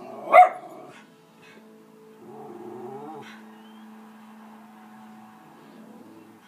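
A Schnauzer barks once, sharply, about half a second in, at animals on the TV. Quieter TV audio with music follows.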